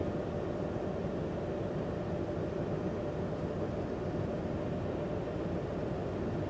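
Steady drone of a ferry's engines heard on board, a low rumble with a faint constant hum above it, unchanging throughout.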